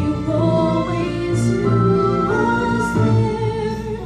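A woman singing a solo song with held notes over instrumental accompaniment, heard live in a theatre.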